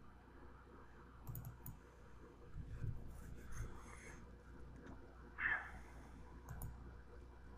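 Faint computer mouse clicks: two close together about a second and a half in and another near the end, with soft rustling between them. A short, louder noise comes about five and a half seconds in.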